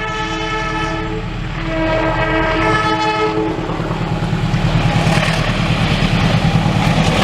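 Locomotive two-tone horn sounding the Semboyan 35 signal: two blasts, the first ending about a second in, the second stopping about three and a half seconds in. Then the train runs close by, with a loud rumble and a rhythmic clatter of wheels on the rails.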